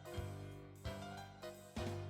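Background music: keyboard notes over a steady beat, with a regular thump about twice a second.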